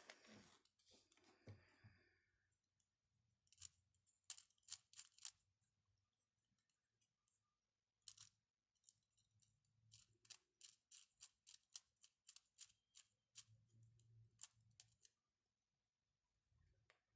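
Plastic 3D-printed mechanical counter clicking as its digit wheels are turned by hand: a few quick clicks, a single one, then an even run of about three clicks a second, with the rustle of handling at the start.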